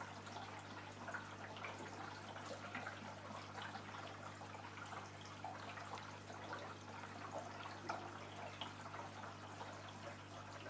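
Aquarium water trickling and dripping, with many small irregular splashes over a steady low hum.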